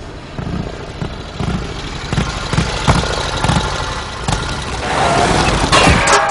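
A motor engine running with uneven low pulses and several sharp knocks. A steady tone begins right at the end.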